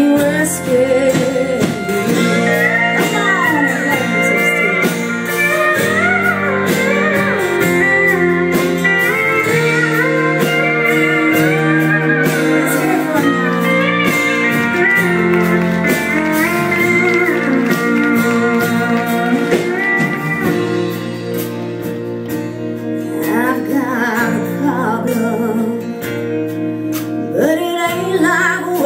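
Live country band playing, with a pedal steel guitar prominent, its notes gliding between pitches over a steady band backing.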